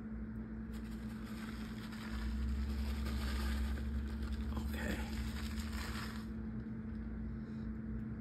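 Plastic bag of grated Parmesan rustling as cheese is shaken out over a baking dish and spread by hand. It lasts about five seconds, starting just under a second in, over a steady low hum.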